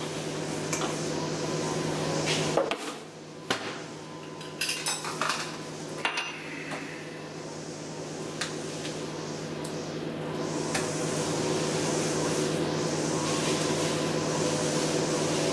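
Cartons of cream and milk and a glass cup handled on a stone kitchen counter: a few sharp knocks and clicks in the first half, over a steady low hum, with a soft hiss in the second half.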